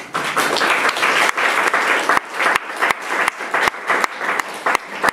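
Small audience applauding, a dense patter of hand claps that starts abruptly and thins out toward the end.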